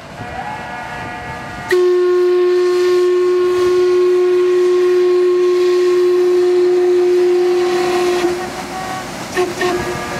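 Paddle steamer's whistle blowing: one long, loud, steady note that comes on sharply about two seconds in and holds for about six seconds before stopping. A few sharp cracks follow near the end.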